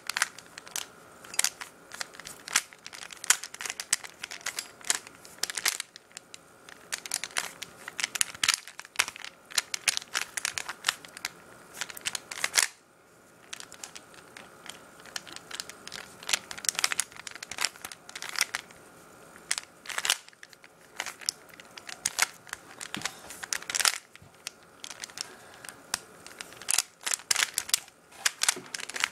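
A regular Rubik's Cube, unlubricated, clicking and clacking in quick flurries as its layers are turned rapidly during a speed solve, with short pauses between runs of moves.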